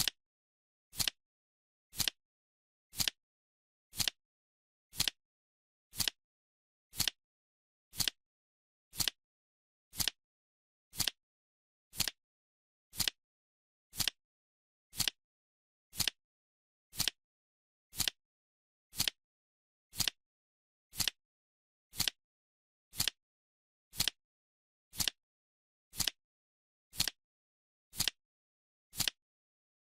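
Clock-style tick sound effect, one short sharp tick every second, evenly spaced with silence between.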